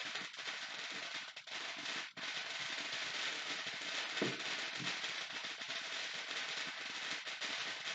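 Distant consumer fireworks and firecrackers popping and crackling faintly over a steady hiss.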